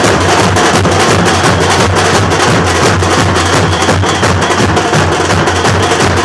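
Loud drumming on large plastic and metal barrel drums, played in a fast, steady beat without a break.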